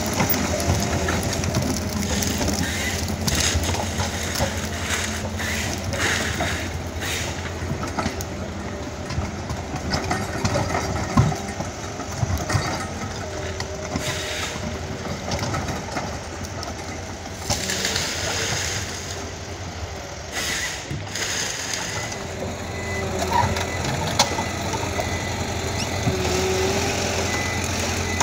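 Ponsse Wisent forwarder's engine running with a steady low drone as the machine drives on its bogie tracks, with the track chains clanking and branches crunching under the wheels.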